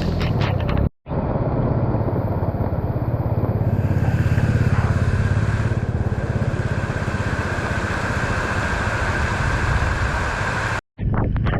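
A motor vehicle engine running steadily with a low, fast throb over a constant hiss. The sound cuts out abruptly for an instant about a second in and again near the end.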